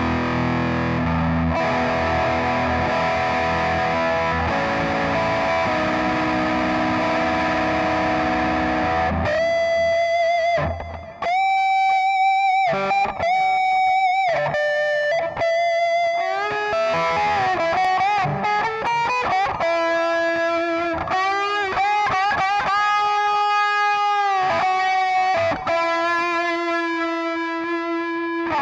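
Electric guitar played through a Digitech RP55 modelling processor on a distorted overdrive patch. Chunky chord riffing runs for about the first nine seconds, then gives way to single-note lead lines with held notes, bends and vibrato.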